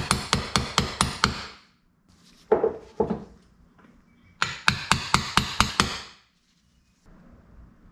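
Rapid, sharp metallic clicks at about five a second, in two runs of a second or two, with two duller knocks between them: hand tools at work on a motorcycle clutch.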